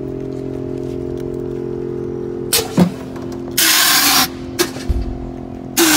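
Steady low hum, then short sharp hisses of escaping air from a lowered Chevrolet Corsa's air suspension venting, the longest lasting under a second, with a low thump near the end.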